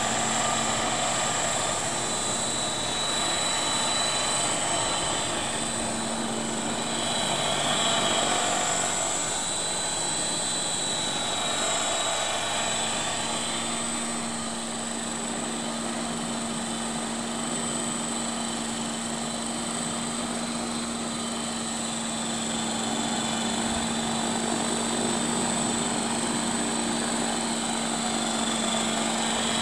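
CopterX 500 SE electric radio-controlled helicopter in flight: a steady whine from its motor and rotors, shifting in pitch a few times as it manoeuvres.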